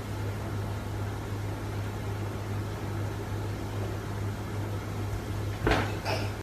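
Steady low hum and hiss of a running machine, with a short louder noise near the end.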